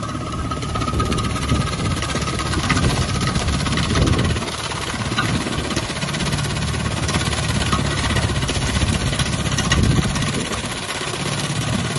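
John Deere 5045 tractor's diesel engine running steadily under load, driving a PTO-powered banana stem shredder that chops through banana stalks with a dense rattling din and a few irregular thuds.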